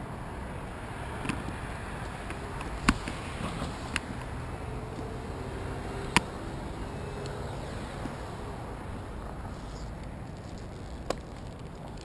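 Steady low background rumble on a helmet-mounted microphone, broken by a handful of sharp clicks and knocks from the climber moving and handling his gear in the tree. The loudest come about three seconds in and about six seconds in.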